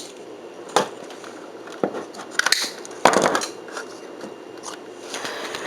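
A few sharp clicks and knocks of hands handling a 1980s Electrobrand stereo, over a faint steady hum.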